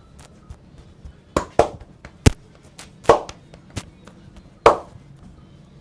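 About six sharp hand slaps of a barber's head massage, hands striking the client in an irregular rhythm over a few seconds.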